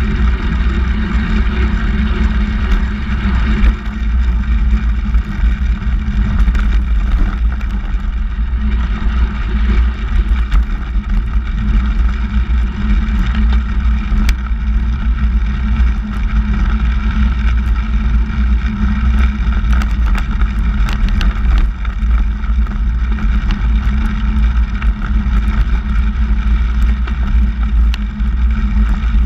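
Steady wind rumble on the microphone with tyre noise from a handbike rolling along asphalt, recorded from a camera mounted on the bike.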